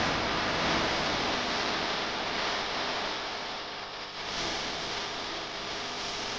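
Steady rushing noise of a jeep driving off-road, with a low rumble underneath that thins out after the first couple of seconds.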